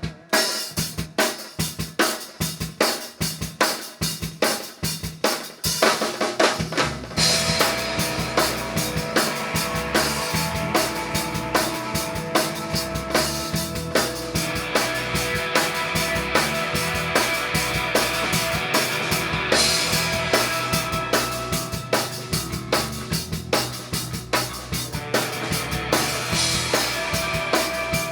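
Instrumental rock music: a drum kit plays a steady beat of bass drum and snare alone for about six seconds, then bass and guitars come in with sustained droning notes over the beat.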